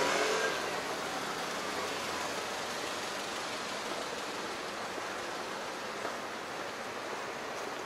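Street traffic: a steady hiss of cars moving on the road beside the pavement, a little louder in the first second and then even.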